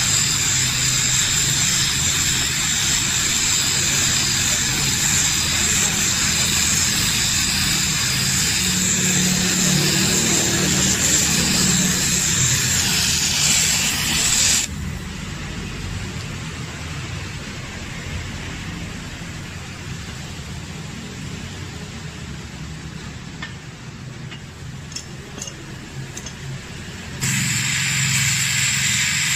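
LPG gas welding torch flame hissing steadily while welding aluminium. About halfway through the sound drops abruptly to a quieter hiss, then jumps back to full level near the end.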